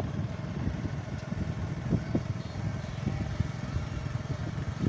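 A motor vehicle engine running steadily while moving, with a low rumble and irregular knocks from the rough track.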